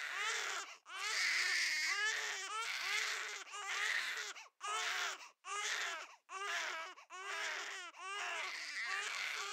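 Newborn baby crying in a run of short wails, about one a second.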